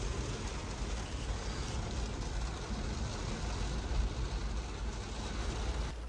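Heavy rain falling on the roof and sunroof of a Starex camper van, heard from inside the cabin, with a steady low rumble of strong wind buffeting the van.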